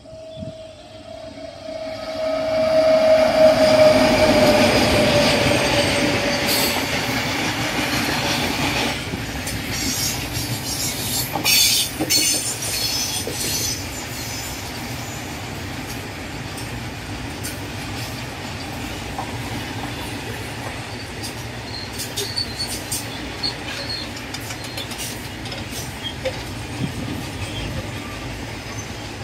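WAG-9 electric freight locomotive passing at speed. A held tone from the locomotive drops slightly in pitch as it goes by. Then a long rake of freight wagons rumbles past, with wheel clatter and occasional short high squeals.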